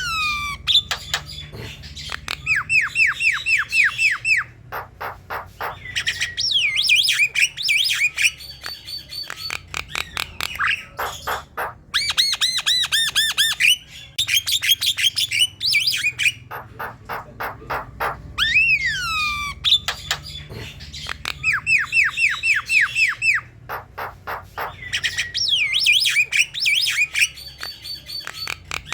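Javan myna singing vigorously. Its song runs in bursts of falling whistled glides, fast runs of repeated notes and harsh squawking calls, with short breaks between the bursts.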